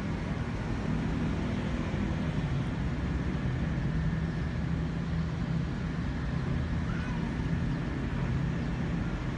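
Steady low rumble of distant city traffic, heard from high up.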